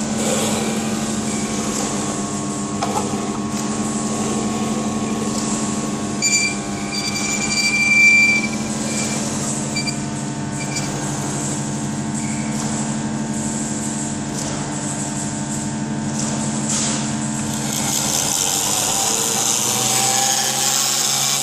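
Homemade bench cutter driven by a rotary tool's small electric motor, running steadily with a constant hum. A higher whine rises about six seconds in, peaks around eight seconds and fades.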